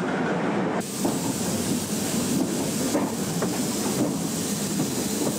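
Steam train rolling along the track, then, less than a second in, an abrupt change to a steady hiss of steam from the locomotive standing at the station.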